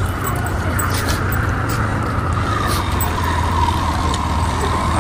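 A motor vehicle engine running steadily, with a low hum and a whine that slowly falls in pitch.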